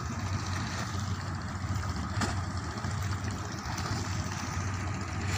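Boat engine running steadily, a low, even hum with a haze of wind and water noise over it.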